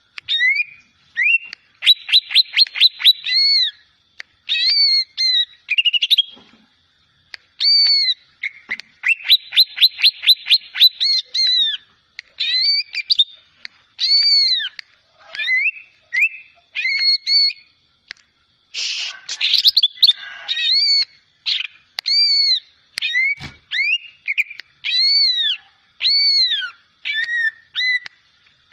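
Young greater green leafbird (cucak ijo) practising its song: a steady string of clear arched whistled notes, broken twice by fast runs of about ten short notes a second and once, about two-thirds of the way through, by a harsh rasping burst.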